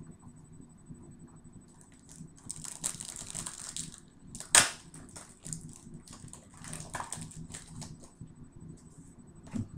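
Rustling and crinkling of trading cards and a foil pack wrapper being handled. A single sharp, loud crackle comes about four and a half seconds in, and a light knock near the end.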